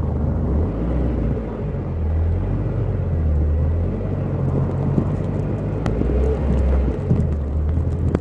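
Car driving slowly through snowy streets: a steady low rumble of engine and road noise.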